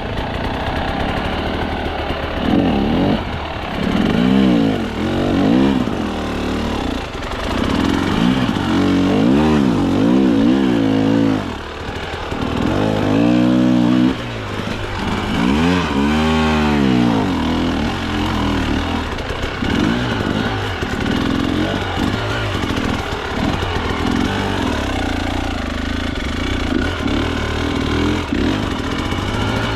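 Two-stroke KTM enduro dirt bike engine revving up and down over and over as the throttle is worked, then running more steadily through the second half.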